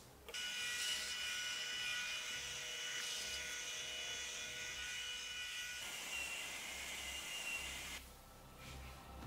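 Small 12V DC motor driving an exoskeleton arm's crankshaft mechanism, running steadily with a whine. It starts just after the beginning and stops about eight seconds in.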